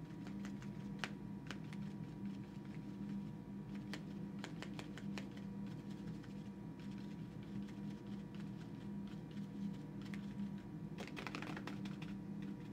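Light, irregular taps of a paintbrush dabbing watercolour onto paper, some coming in quick little clusters, over a steady low room hum.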